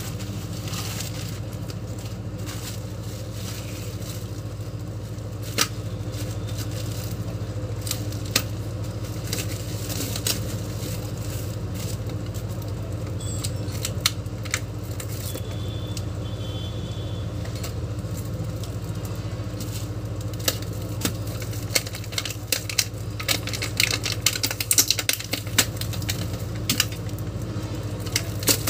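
Plastic packaging and bubble wrap crinkling and crackling as kitchen tools are unwrapped by hand, with scattered sharp clicks that come thicker near the end. A steady low hum runs underneath.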